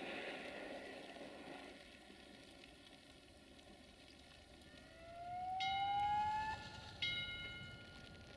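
Level crossing warning signal sounding: a rising electronic wail with a bell-like ringing tone that stops and starts again, over faint background noise.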